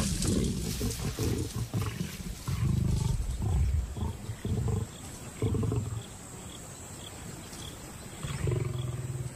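Lions snarling and growling in a short scuffle over a carcass, as a male lion forces lionesses off their kill. The sound comes in several harsh bursts, with a quieter lull before a last snarl near the end.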